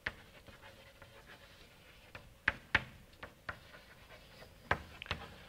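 Writing on a lecture board: about six sharp taps and clicks, scattered unevenly, with faint scraping between them.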